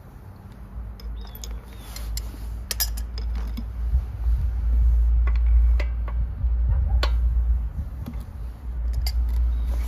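Irregular metallic clicks and clinks of hand tools and engine parts being handled on a small Honda GCV engine while the spark plug is taken out, over a low rumble that swells about four seconds in and eases near the end.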